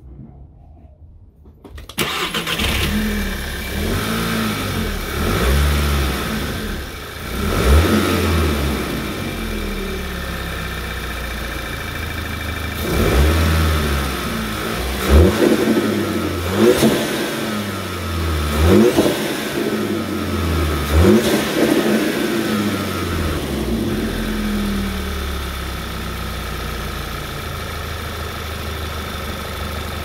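The turbocharged 2.0-litre four-cylinder engine of a Mk6 VW Golf GTI, fitted with a COBB SF intake with its airbox closed, starts about two seconds in. It is blipped through about six quick revs, each rising and falling, then settles back to a steady idle.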